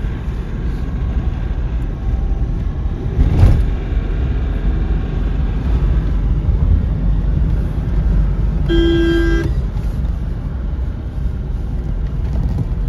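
Mahindra Bolero Neo driving, with a steady low road and engine rumble. There is a thump about three seconds in, and a car horn sounds once, briefly, about two-thirds of the way through.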